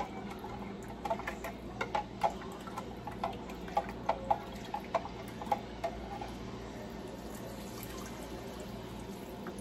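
Instant beef broth poured from a plastic measuring cup into a slow cooker full of beans, with short splashes and taps over the first six seconds or so, then only a low steady background hum.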